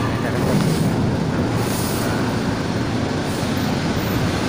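Box truck's engine running as the truck drives slowly up the ramp onto a ferry's vehicle deck: a steady low rumble inside the enclosed steel deck.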